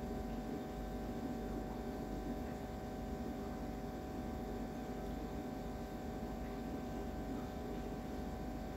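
Idlis deep-frying in hot oil in a pan: a steady sizzle and bubbling, with a low steady hum underneath.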